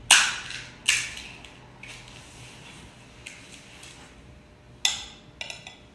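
Crisp, hollow golgappa (pani puri) shells cracking as they are poked open with fingers: a handful of sharp crackles, the loudest two in the first second.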